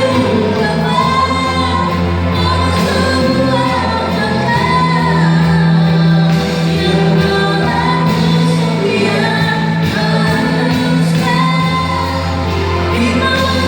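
A woman singing a Malay song in a strong voice over instrumental accompaniment, holding and bending long melodic notes above a steady bass line.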